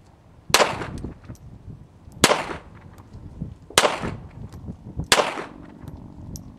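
Ruger Mark III Hunter .22 LR semi-automatic pistol fired four times, slow aimed shots about a second and a half apart, each crack followed by a short echo.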